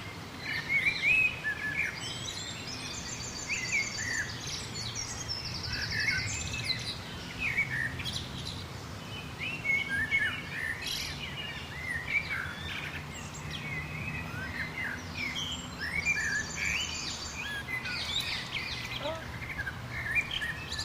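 Several songbirds chirping and calling in a busy overlapping chorus of short whistled notes. Rapid high trills break in a few seconds in and again near the end. A faint steady low background hum runs underneath.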